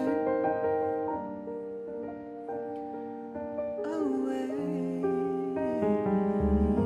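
Live band music: an instrumental passage of sustained keyboard chords, with a bass line coming in near the end.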